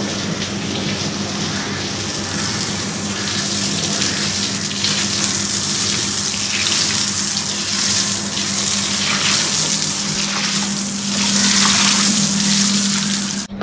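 Water spraying hard from a garden hose, its end pinched in the hand into a fan, hissing and spattering on a tiled floor as it is washed down. A steady low hum runs underneath, and the spray gets a little louder near the end.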